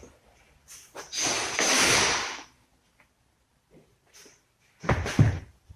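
Parts of a dismantled shock-absorber strut being handled: a scraping rustle lasting about a second and a half, then a few sharp knocks near the end.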